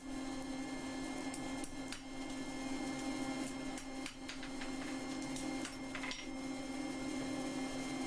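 Steady hum of a forge running at a low setting, with scattered light metallic clicks and scrapes as a steel coil spring is unwound in the anvil's hardy hole and handled.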